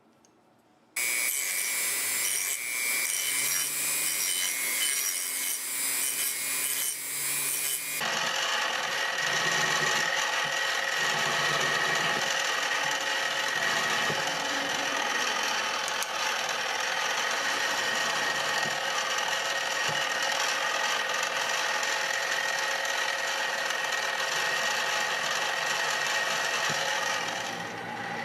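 A power tool shaping a G-10 knife handle scale: scratchy abrasive noise over a steady motor tone. It starts about a second in and changes suddenly about eight seconds in to a different, steady grind.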